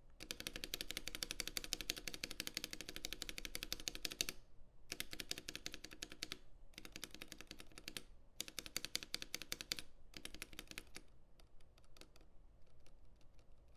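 Mechanical keyboard with lubed Gateron Oil King switches and TX AP stabilizers being typed on fast, in several rapid bursts of keystrokes. Near the end the typing thins out to slower, separate key presses.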